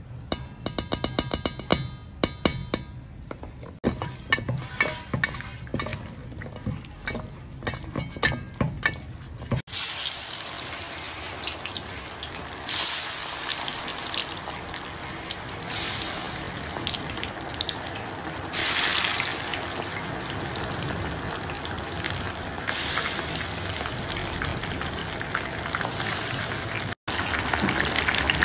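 Floured puffer fish chunks deep-frying in hot oil: a steady loud sizzle that starts about a third of the way in and surges several times as more pieces go into the pan. Before that comes a run of sharp clicks and knocks.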